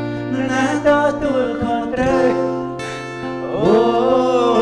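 Live singing to an acoustic guitar accompaniment. About three and a half seconds in, the voice slides up into a long held note.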